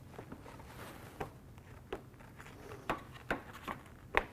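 Light plastic clicks and knocks as an accordion side filler panel is worked down onto the small mounting clips on the side of a window air conditioner. There are about seven separate knocks, the sharpest one shortly before the end.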